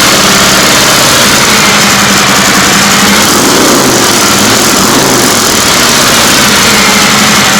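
Harley-Davidson Milwaukee-Eight 107 V-twin idling loudly through its stock exhaust, just after starting, heard from behind the pipes.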